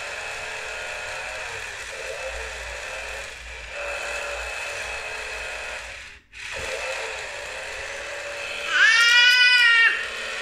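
Battery-powered toy chainsaw playing its electronic engine sound steadily through a small speaker. It cuts out briefly about six seconds in, then resumes. Near the end a louder, high-pitched wavering sound lasts about a second.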